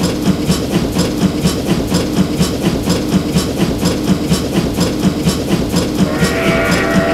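Animated train sound effect: the rhythmic clickety-clack of wheels running over rail joints, about three beats a second, with a steady tone joining about six seconds in.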